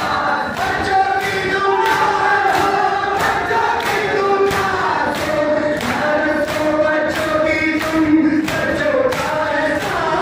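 A group of men chanting a Shia matam nauha in unison into a microphone, with the crowd beating their chests in a steady rhythm of about two thumps a second.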